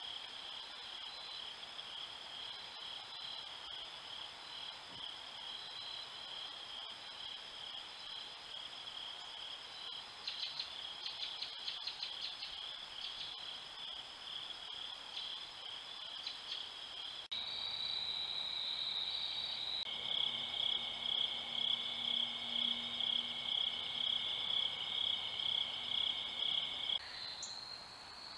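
An insect chorus chirping in a steady, high trill. It changes abruptly twice, about two-thirds of the way through and near the end, and for a stretch in between it is louder, pulsing about twice a second.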